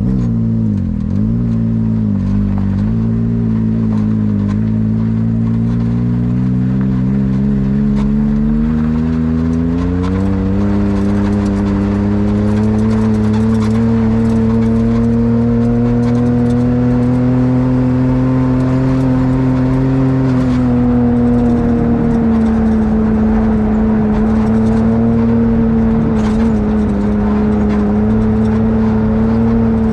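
Can-Am XRC side-by-side engine running, its pitch wavering for the first few seconds, rising about ten seconds in, then holding steady with a slight drop past the middle. The machine is in limp mode, which the owner puts down to a bad drive belt.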